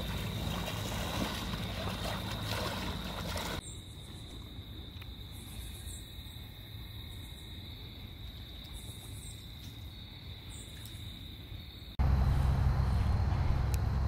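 Outdoor summer ambience with a steady high-pitched insect drone. About twelve seconds in, a loud low rumble takes over.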